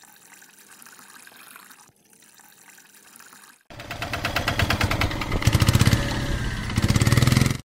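Water trickling from a small pipe into a shallow puddle. About three and a half seconds in, a loud engine-like running sound starts suddenly, with rapid even pulses, and cuts off just before the end; it goes with the homemade mini tractor.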